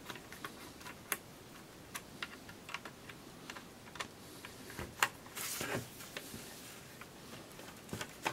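Small screws being backed out of a plastic telephone casing with a screwdriver: faint, irregular clicks and ticks, with a brief scraping rustle about five and a half seconds in.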